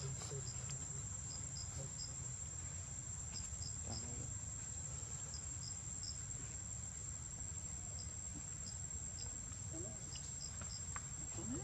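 Steady high-pitched insect trill, typical of crickets, with short high chirps coming in little clusters of two or three, over a low steady rumble.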